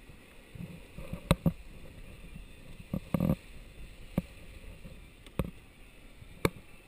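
Sailboat moving under sail, with a steady hiss of water rushing past the hull broken by sharp knocks and slaps at irregular intervals of about a second. The heaviest is a short, fuller slap about three seconds in.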